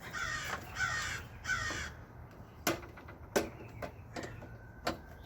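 A crow caws three times in quick succession, then several sharp clicks and knocks follow over the next few seconds.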